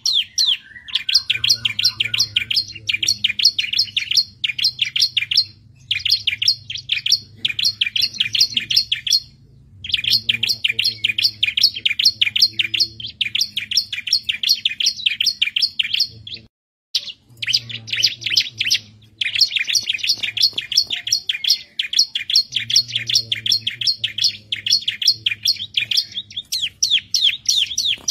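Bar-winged prinia (ciblek) singing vigorously: long runs of rapid, sharp, high chirps in phrases several seconds long, broken by brief pauses. A faint low hum sits underneath at times.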